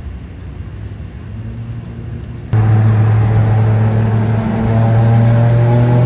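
A low rumbling noise, then about two and a half seconds in a car engine's steady drone cuts in suddenly and loudly, holding at a constant pitch.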